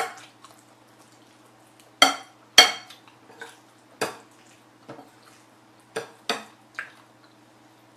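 Metal spoon clinking and scraping against a ceramic bowl while mixing black bean sauce into rice: about eight irregular strikes, the loudest two about two seconds in.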